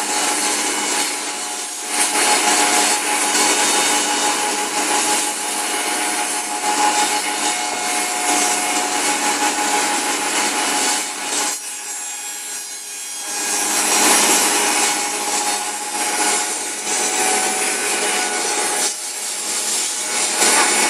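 Two-head cutting and milling machine running, its cutters working through the stock with a continuous harsh cutting noise over a steady motor tone. The cutting eases for a couple of seconds around the middle, then picks up again.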